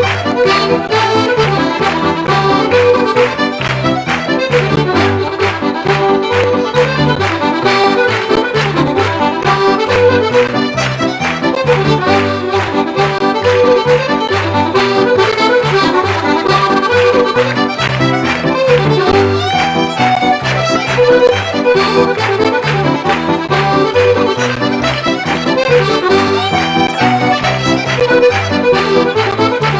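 Fiddle and accordion playing a fast traditional tune together, the melody moving quickly over steady bass chords on the beat.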